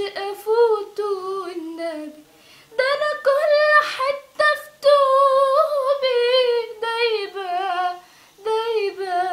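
A teenage girl singing alone without accompaniment, in long drawn-out ornamented phrases whose pitch wavers and slides, with short breaths between phrases.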